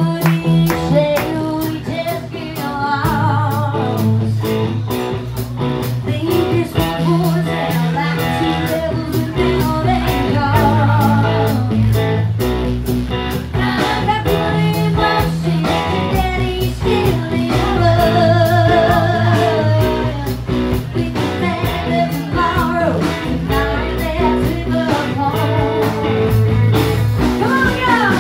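Live country band playing a cover song, with fiddle, electric guitar and bass, and a woman singing lead into a microphone over a steady beat.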